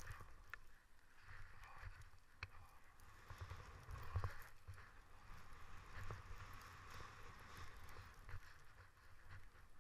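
Skis hissing through powder snow, swelling and fading with each turn every second or two, over a low rumble and a few faint clicks.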